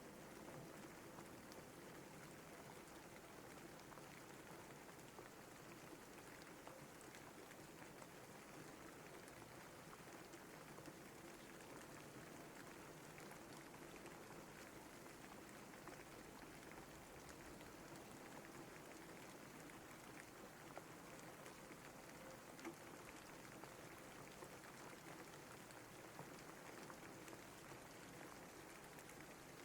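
Faint, steady rainfall: an even hiss of rain with many small drop ticks, holding steady throughout.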